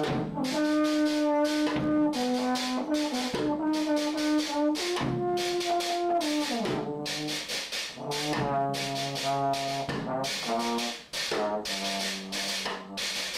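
A brass instrument playing a run of held notes, changing pitch every second or so, over a steady beat of drum or cymbal strikes about three a second.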